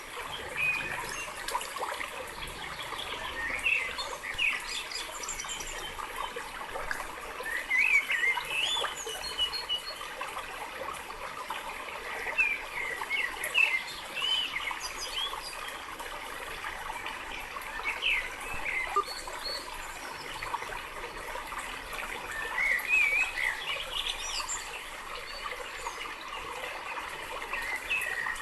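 Birds chirping and calling in short, repeated phrases over a steady hiss of flowing water.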